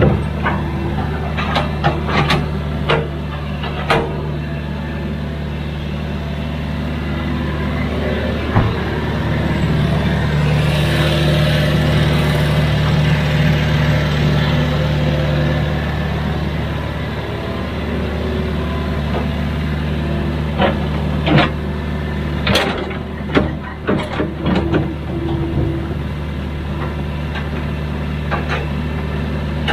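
Hydraulic excavator's diesel engine running steadily, working harder for a few seconds near the middle. Sharp knocks and clanks come in clusters near the start and again about two-thirds through.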